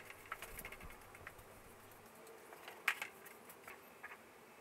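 Faint scratchy brushing and light taps as a hand brush sweeps dust off a thin plywood sheet, with one sharper click about three seconds in.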